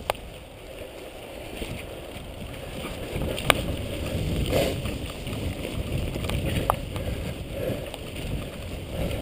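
Mountain bike riding down a dirt forest trail: steady tyre rumble and wind noise, with a couple of sharp rattles from the bike over bumps.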